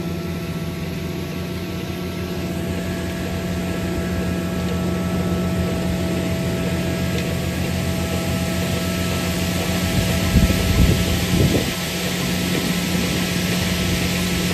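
Tractor pulling a Lemken Solitair DT grain drill across the field at about 8 mph: a steady mechanical drone with a haze of noise over it. A brief bout of low buffeting comes about ten seconds in.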